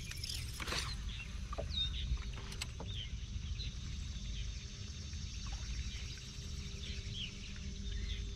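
Small waves lapping against a bass boat's hull under a steady low rumble of wind on the microphone, with a faint steady hum. Short bird chirps come through a few times.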